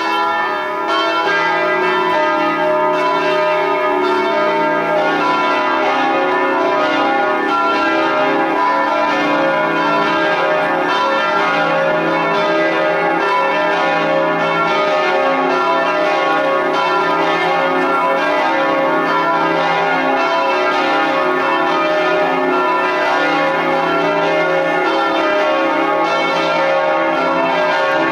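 Church bells pealing, several bells struck over and over so that their rings overlap in a dense, continuous chime.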